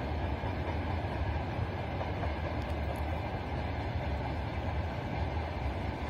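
Steady low rumble with an even hiss over it, unbroken and without distinct events.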